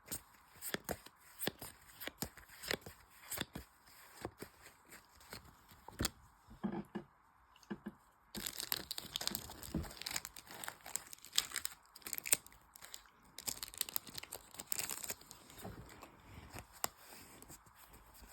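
Pokémon booster pack foil wrappers being torn open and crinkled by hand, a run of sharp crackles that grows denser and fuller about eight seconds in.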